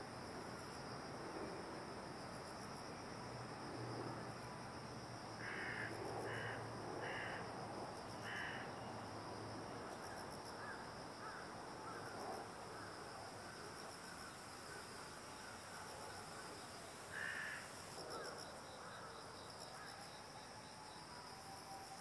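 Insects chirring steadily and high-pitched, with a bird giving short harsh calls, four in quick succession about five to eight seconds in and one more about seventeen seconds in.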